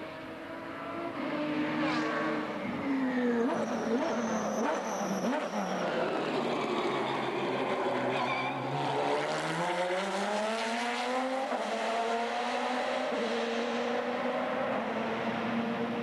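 Lister Storm race car's Jaguar V12 engine. The revs fall with several sharp throttle blips as it downshifts, then climb under hard acceleration, drop once at an upshift and stay high.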